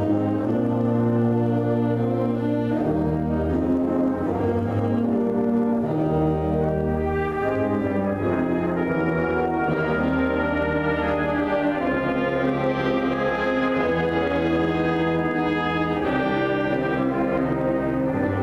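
High school concert band playing a slow piece, brass to the fore, in long held chords that change every second or two.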